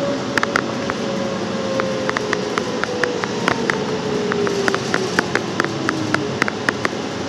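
Steady road and engine noise inside a moving car's cabin, with a tone that slowly falls in pitch and many light, irregular clicks.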